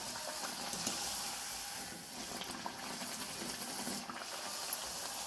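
Hot oil sizzling and bubbling steadily in a kadai as a flat mung dal kachori deep-fries.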